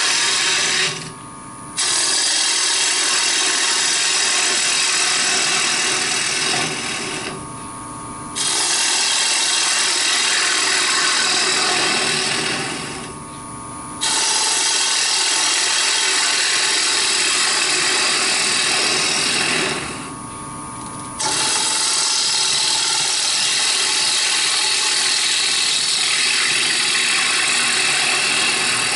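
Bowl gouge cutting across the face of a spinning wooden plate on a lathe, a steady hiss of wood being shaved in four long passes. Between passes the cutting noise drops away briefly and only the lathe's steady hum remains.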